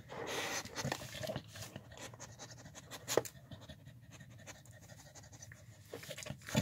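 Dog licking and nosing at a nearly empty food bowl, with irregular scraping and small clicks of the bowl and a single sharp click a little past three seconds in.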